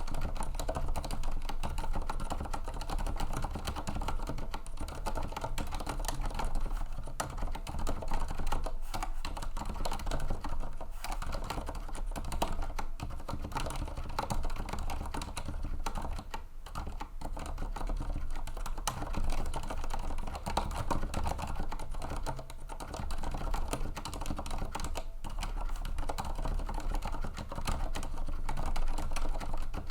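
Fast, continuous typing on a TEX Shinobi mechanical keyboard with silent red switches: a dense, steady stream of keystrokes at about 93 words per minute.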